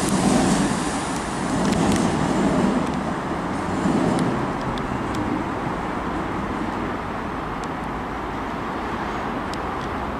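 A train running past and fading over the first four seconds or so, leaving a steady rumble of traffic.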